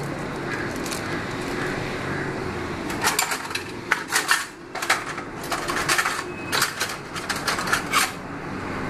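Metal kitchenware clinking and scraping: an irregular run of sharp clinks starting about three seconds in and lasting some five seconds, over a steady low background hum.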